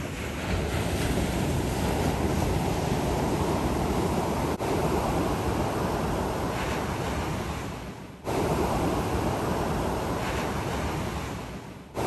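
Pacific Ocean surf breaking and washing up the beach, a steady rushing hiss with wind buffeting the microphone. The sound dips out briefly about eight seconds in and again at the end.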